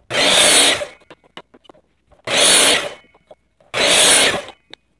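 12-inch sliding miter saw with a 60-tooth blade making three short cuts through wooden pieces, about a second and a half apart, each starting suddenly and dying away in under a second, with light clicks and knocks between them.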